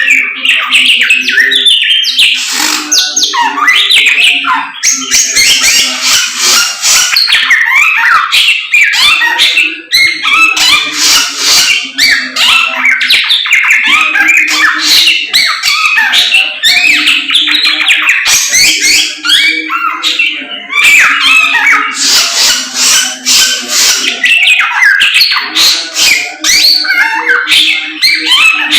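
Caged samyong songbird singing loudly and almost without pause in fast chirping, trilling phrases: full, continuous song. A low steady hum runs underneath.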